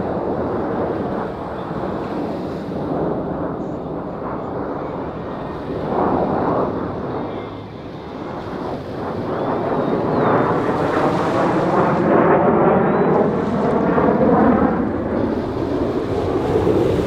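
Jet roar from the Blue Angels' six F/A-18 Super Hornets flying in formation. The roar grows louder from about ten seconds in and takes on a sweeping, wavering tone as the jets pass.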